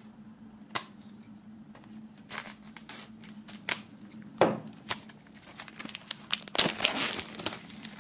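Plastic shrink-wrap film being cut with a knife and peeled off an album's cardboard packaging: scattered crinkling and tearing, busiest in the second half.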